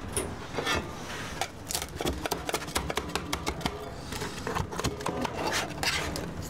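A metal spatula clicking and scraping against a stainless steel hotel pan while cutting through potato gratin: a quick, irregular run of clicks and scrapes.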